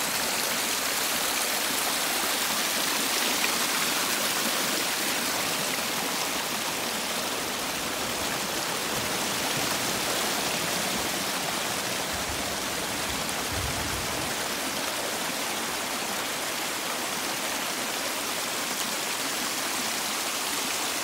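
Rainwater flood runoff rushing over the hillside in the rain: a steady, unbroken rush of water.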